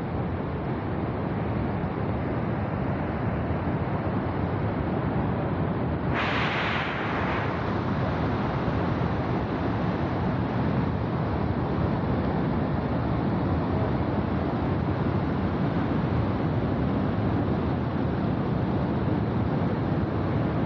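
Flash-flood debris flow, a torrent of muddy water and rock pouring down a gully, giving a steady deep rushing rumble. About six seconds in a brighter hiss sets in suddenly and fades over a couple of seconds.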